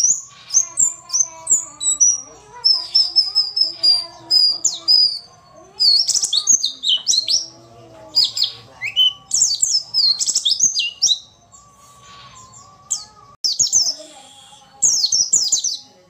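White-eye (pleci) chirping in quick runs of sharp, high twittering notes with short down-sweeps and brief pauses between phrases. This is the female pleci call used as a lure to set silent male white-eyes singing.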